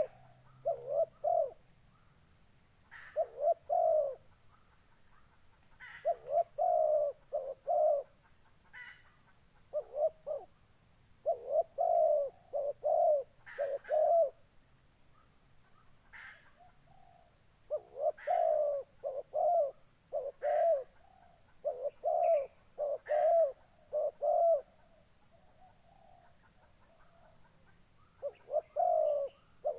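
A dove cooing in repeated phrases of short notes, each phrase opening with a brief higher note, with pauses of a few seconds between phrases and a longer pause near the end.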